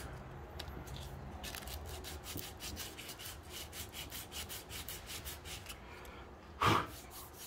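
Coarse sandpaper rubbed by hand over a ski's base in quick back-and-forth scratchy strokes, roughening the base so a P-Tex repair will stick. The strokes stop about six seconds in, and a brief thump follows.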